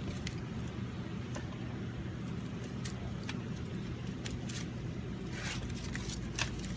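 Nylon seat-belt webbing and its metal ring being handled and threaded: scattered light rustles and small clicks, a few close together about five and a half seconds in, over a steady low hum.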